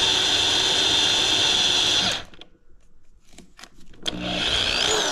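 Corded DeWalt electric drill running steadily while drilling a hole in a small part, cut off abruptly about two seconds in. After a short pause with a few light clicks, it runs again briefly near the end, its pitch falling as it winds down.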